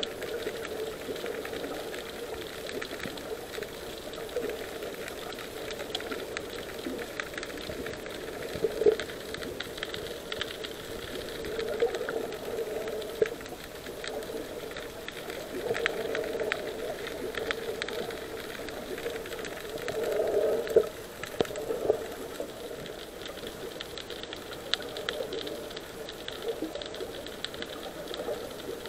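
Underwater sound picked up by an action camera in its waterproof housing: a steady, muffled water rush with scattered crackling and a few louder knocks.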